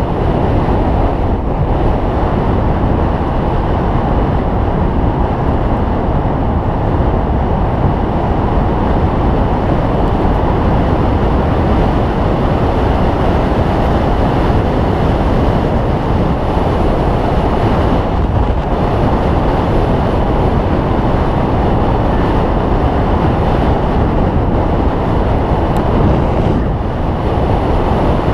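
Steady, loud rumble of wind and road noise on a handlebar-mounted action camera's microphone as a road bike rolls along at speed.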